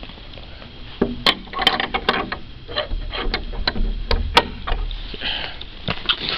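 Footsteps crunching on packed snow, irregular crunches with a few sharp clicks among them.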